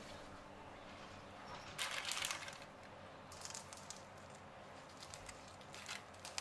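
Chef's knife cutting through the baked crust of a focaccia pizza, giving a few short crunchy crackles, the loudest about two seconds in.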